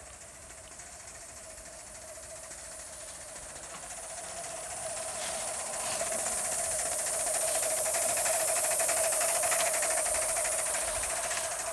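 O gauge live-steam model of an LNER Q6 0-8-0 hauling a goods train: steam hissing and wheels running on the rails, getting louder as it approaches and passes, loudest near the end. A steady high whine runs under it.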